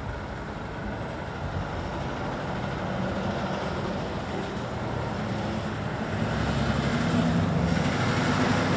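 Motor vehicle engine noise, running steadily and growing louder toward the end, with a low hum coming in during the last few seconds.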